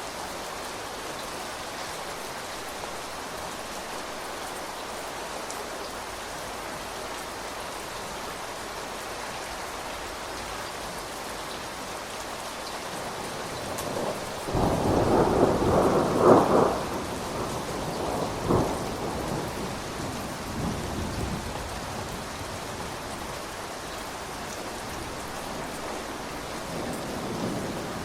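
Steady rain falling, with a roll of thunder about halfway through: a loud rumble with a sharp peak, a second smaller crack a couple of seconds later, then trailing off back into the rain.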